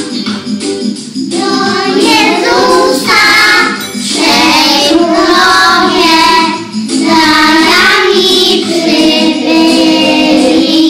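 Children's voices singing a Polish song together over instrumental backing; the first second or so is only the accompaniment with even percussive strokes before the singing comes in.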